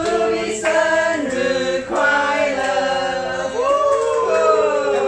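A group of people singing together, mixed men's and women's voices on long held notes.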